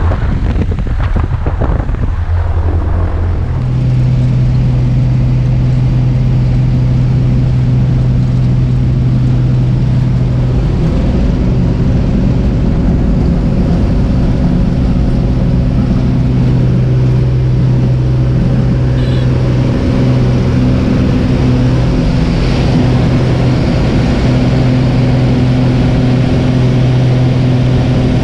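Single-engine light aircraft's piston engine and propeller, heard from inside the cabin: a steady low drone that steps up in pitch and level about four seconds in as power is brought up, then holds at a steady high drone through the takeoff.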